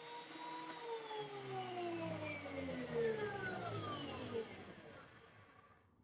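DeWalt DW734 thickness planer winding down after being switched off: its steady motor and cutterhead whine slides smoothly down in pitch from about a second in and fades out over some five seconds.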